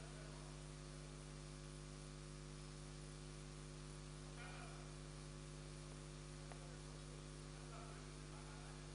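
Steady low electrical mains hum from the sound system, over faint room noise.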